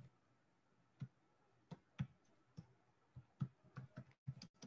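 Faint computer keyboard keystrokes as someone types: a few scattered clicks at first, then quicker keystrokes in the second half.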